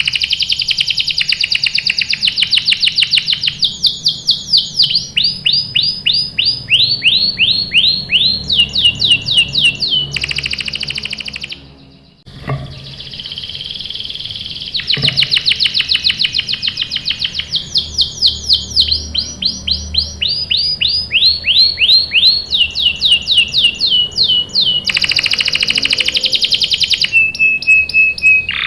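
Domestic canary singing a long song of fast rolling trills, each made of quickly repeated high sweeping notes that change to a new pattern every second or two. The song breaks off briefly about twelve seconds in, then starts again with much the same series of trills.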